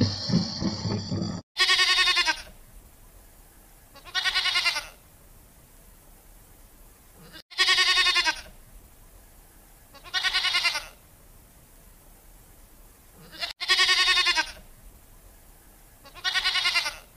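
Goats bleating: pairs of loud, wavering calls about two and a half seconds apart, the second call of each pair a little shorter. The same pair comes three times, about six seconds apart.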